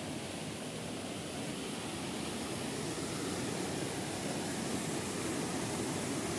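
Shallow rocky stream rushing over rapids in a steady, even hiss, growing a little louder from about halfway.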